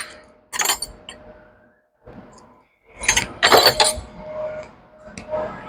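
Metal hand tools clinking and rattling: a short rattle about half a second in, a longer clatter around three seconds in, then a few light ticks.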